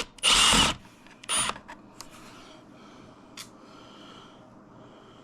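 Milwaukee cordless impact driver run in two short bursts, about half a second near the start and a briefer one a second later, backing screws out of an RC car chassis. A single faint click follows a couple of seconds later.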